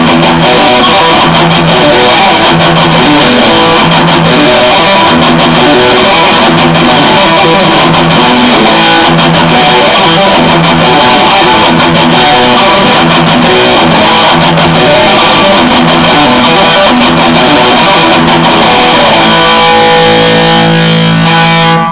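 Electric guitar playing a loud, rhythmic repeating riff, ending on a held chord that rings out and then cuts off.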